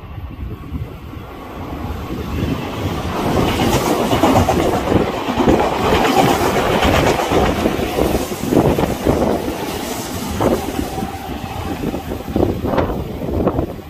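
Odakyu Line electric train running along the station platform, its wheels clattering over the rail joints. The sound builds over the first couple of seconds and is loudest mid-way, with separate clacks near the end.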